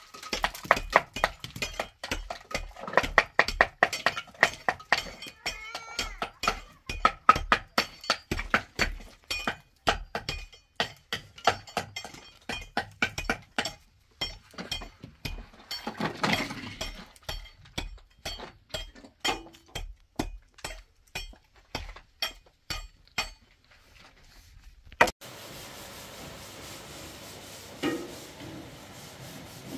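A steel trowel knocking on concrete blocks in quick repeated taps, about two or three a second, each with a short metallic ring, as blocks are trimmed and tapped into place. About 25 seconds in this gives way to a steady hiss from a pot cooking on a gas stove, with one clink of a metal ladle against the pot near the end.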